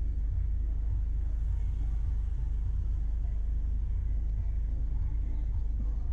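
Steady low rumble of a car driving along a road: engine and tyre noise, with no sudden events.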